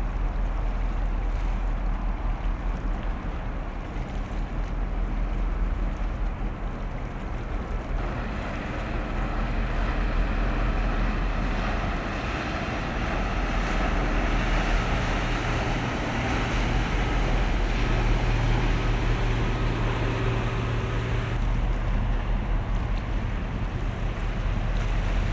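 A passing vessel's engines drone steadily under wind rumble on the microphone and water noise. The drone and hiss swell for a stretch in the middle, then ease off.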